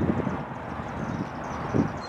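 Wind buffeting the microphone in irregular low thumps, over a steady rumbling hiss.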